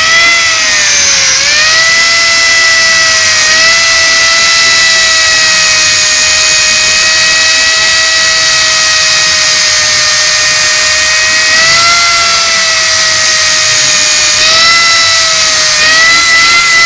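Hand-held power grinder running with a steady high whine and a hiss, grinding down the repair on a Kawasaki KZ1300A3's generator cover. Its pitch sags briefly several times as it is pressed into the metal.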